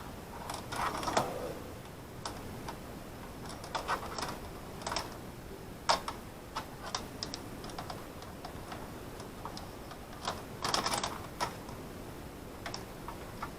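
Irregular light clicks, taps and rustles of hands handling small wires and plastic parts while sorting out wiring.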